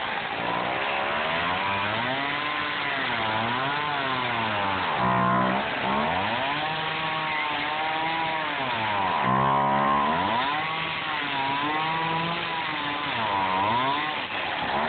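Small two-stroke gas chainsaw running and cutting through a block of expanded polystyrene foam. The engine's pitch rises and falls over and over, dropping low twice: about five seconds in and again past nine seconds.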